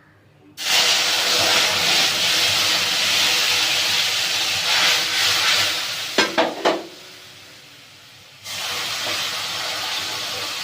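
Hot mustard oil with a nigella-seed tempering sizzling loudly in a kadai. The sizzle starts suddenly about half a second in, with a few metal clinks around six seconds. It dies down, then flares up again near the end.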